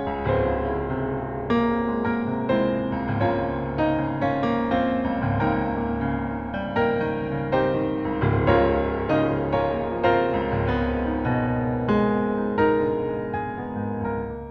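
Background piano music: a gentle melody of struck notes over sustained chords at a steady pace.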